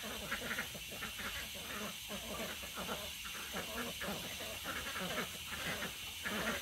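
A flock of domestic ducks quacking faintly at a distance, many short calls overlapping.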